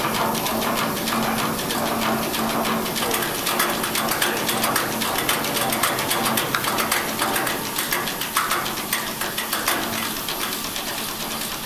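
Belliss & Morcom high-speed steam engine and its DC generator running down after being shut off: a fast, even clicking rhythm with a steady hum that stops near the end, the whole sound easing off over the last few seconds.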